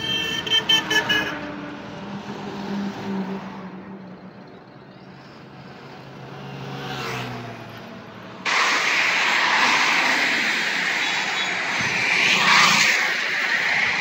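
Road traffic on a highway: a horn beeps in a quick string in the first second, then passing vehicles' engine hum fades away. About 8.5 s in, a louder steady rush of traffic noise starts suddenly.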